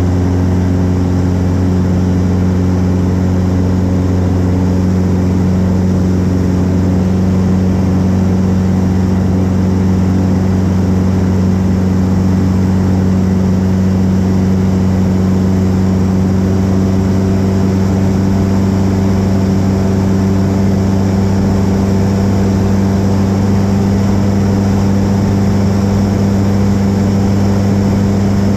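Pitts S-1C biplane's engine and propeller running steadily in flight, one even drone with wind noise, heard from the open cockpit.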